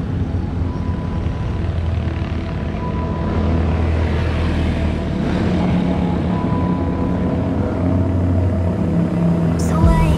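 Motor vehicle engine running with a steady low hum, its pitch shifting up a couple of times.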